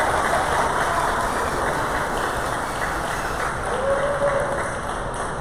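Audience applauding, a dense patter of clapping that eases slightly, with a brief faint tone about four seconds in.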